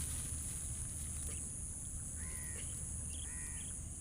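A bird calling twice, about a second apart, with short arched calls over a steady high-pitched insect drone.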